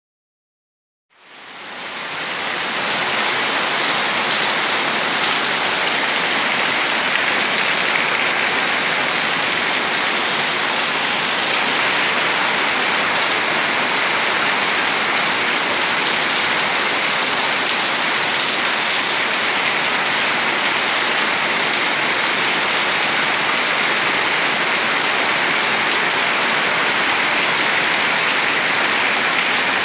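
Heavy rain pouring down steadily on potted plants and a wet floor, fading in about a second in.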